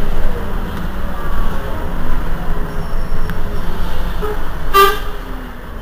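Heuliez GX 327 city bus engine idling with a steady low rumble. A little under five seconds in, a single short horn toot.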